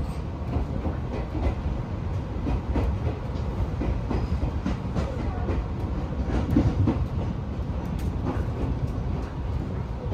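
Kamikōchi Line electric train running on the rails: a steady low rumble of wheels and running gear with irregular clicks and clacks from the wheels over the track, loudest a little past the middle.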